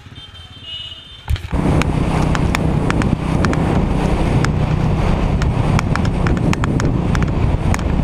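Wind rushing over a helmet-mounted camera's microphone on a motorcycle at road speed, with the engine running underneath and many sharp buffeting pops. It starts abruptly about a second in, after a brief stretch of faint music.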